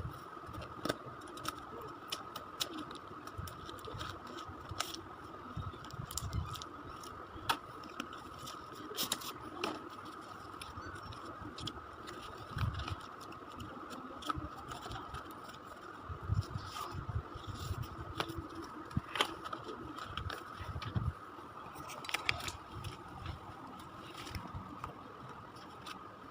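Handling noise: irregular clicks, scrapes and light knocks of objects being moved and unpacked, over a steady faint high-pitched tone.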